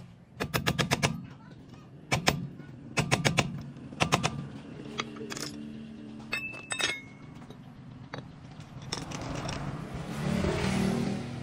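Steel hammer striking a screwdriver used as a drift against a Chevrolet Aveo's rear wheel hub, in quick bursts of several sharp taps, working the hub with its broken wheel bearing loose. A few lighter metallic clinks follow, then a rushing noise swells near the end.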